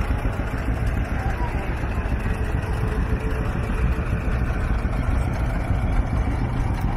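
An engine running steadily, a constant low rumble with no change in speed.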